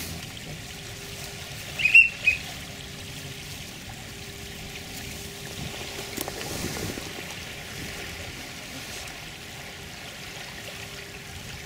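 Small waves lapping and trickling at the shoreline, with two short high-pitched whistled chirps about two seconds in.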